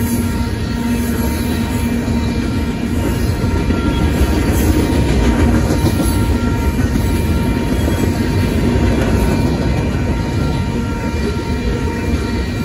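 Freight cars of a Union Pacific manifest train rolling past over a grade crossing: a loud, steady noise of steel wheels on rail, with faint thin steady tones above it.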